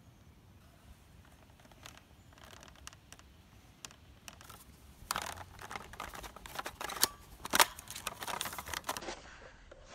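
Clicks and rattles of an AK-pattern rifle being handled. They are scattered at first, then come thick and fast from about halfway through, with the sharpest clicks a couple of seconds before the end.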